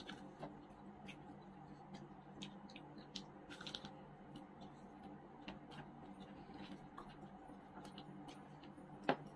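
Faint close-up eating sounds of chicken wings being bitten and chewed: scattered soft clicks and smacks over a low steady hum, with one sharper click near the end.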